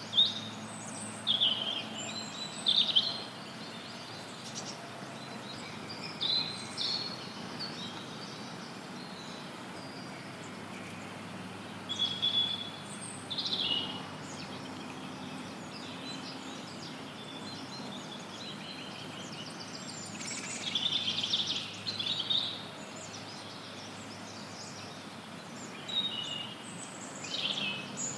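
Songbirds chirping and trilling in short scattered bouts over a steady, even hiss of background noise.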